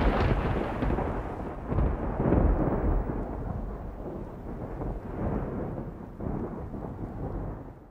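A deep rolling rumble that swells several times and slowly dies away, fading out at the very end.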